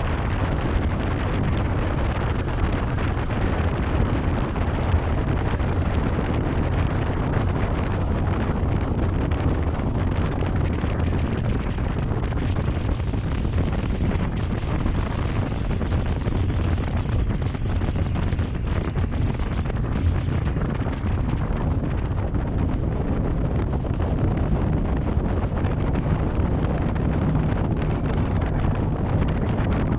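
Steady wind noise on the microphone over the low rumble of the 26-foot Cheetah Wildcat deck boat running at speed, easing from about 65 mph to about 40 mph.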